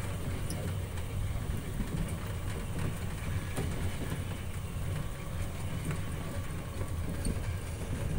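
Open-sided tourist tram riding along, heard from a passenger seat: a steady low rumble with light rattling and small knocks from the body.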